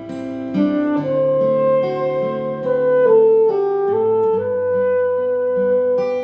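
Instrumental music with no singing: a slow melody of long held notes, carried by a wind-like lead, over a steady bass line.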